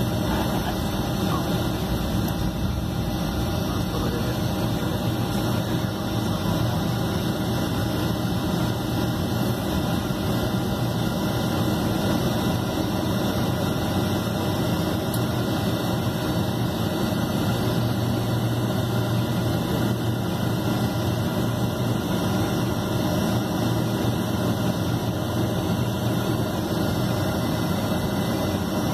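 Boeing 757 jet engines running at low taxi power, heard from inside the passenger cabin as a steady low hum under an even hiss.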